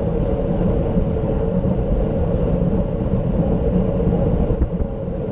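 Steady wind rush buffeting a handlebar-mounted camera's microphone, mixed with the low rumble of road-bike tyres on asphalt at speed.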